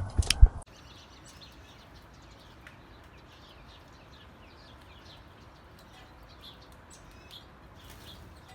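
A few loud knocks, cut off suddenly, then many small birds chirping: short, quick, high-pitched calls repeating over a faint background.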